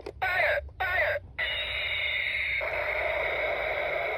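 Toy space gun's electronic sound effects playing from its small speaker: two short warbling zaps, then a longer steady electronic tone with a hiss from about a second and a half in.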